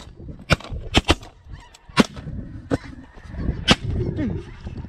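A volley of shotgun shots from several hunters firing at snow geese, about six sharp, irregularly spaced blasts, two of them almost together about a second in. Behind them, the flock of snow geese calls continuously.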